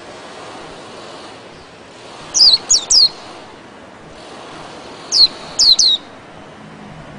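Caged white-eye (pleci) calling: two groups of three quick, high chirps, each note sweeping downward, about three seconds apart.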